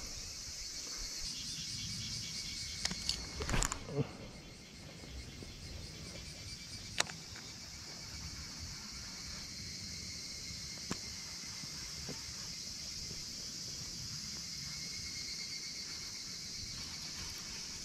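Insects buzzing steadily and high-pitched in the background. A few sharp clicks stand out, a cluster about three to four seconds in and single ones about seven and eleven seconds in.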